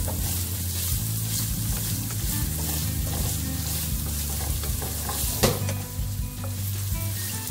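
Carrots and broccoli sizzling in olive oil in a nonstick skillet as a wooden spatula stirs and scrapes them around the pan. There is a single sharp knock about two-thirds of the way in.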